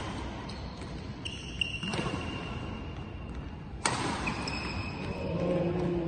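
Badminton rally: rackets strike the shuttlecock with sharp cracks, one about two seconds in and a louder one near four seconds, while court shoes squeak on the floor.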